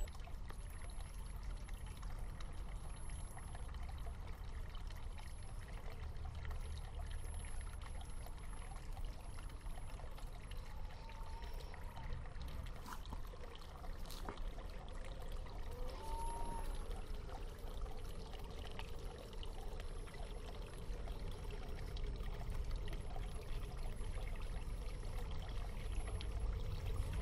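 Water trickling and pouring steadily.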